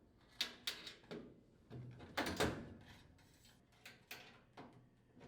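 Putty knife prying at the washer's sheet-metal main top to release its retaining clips: a string of short clicks and scrapes, with a heavier clunk a little over two seconds in.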